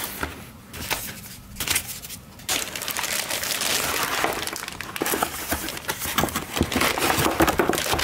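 A clear plastic bag wrapped around a computer keyboard crinkling and rustling as the keyboard is handled and lifted out of its cardboard box. It starts as light rustles and becomes a steady, dense crinkling from about two and a half seconds in.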